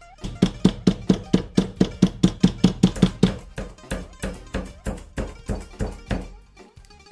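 Hand-held multi-blade meat tenderizer punching repeatedly through a raw pork chop into a wooden cutting board: quick thunks about four a second, a little softer after a short break about four seconds in.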